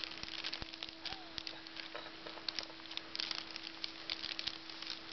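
Christmas wrapping paper and a plastic treat bag crinkling and rustling in quick, irregular crackles as a flat-coated retriever noses and tears at them, over a faint steady hum.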